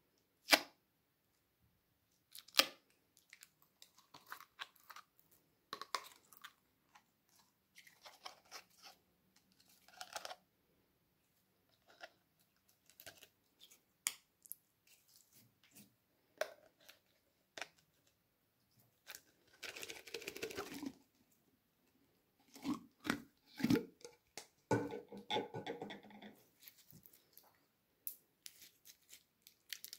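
Glitter slime being pulled from a plastic jar and squeezed and stretched by hand: irregular short sticky clicks and squelches, with two longer squelching stretches in the second half.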